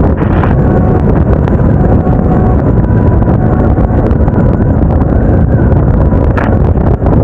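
Wind buffeting the microphone of a motorcycle-mounted action camera while riding, a steady low rumble with the motorcycle's running underneath.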